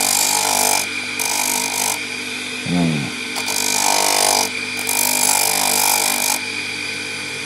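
Powered sanding disc running steadily while a wooden knife handle with its steel tang is pressed to the abrasive in four passes of about a second each, each pass a gritty rasp over the motor's hum.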